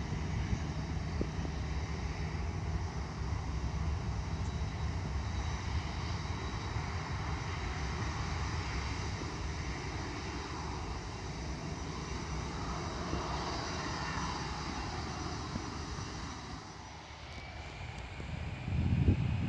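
Boeing 737-800 jet engines running: a steady rush with a high whine on top. The engine sound falls away near the end, and wind starts buffeting the microphone.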